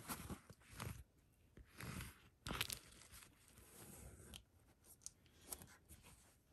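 Faint, scattered rustles and scrapes of thread being drawn through quilted fabric and fingers handling the cloth while a knot is tied by hand, with one sharper scrape about two and a half seconds in.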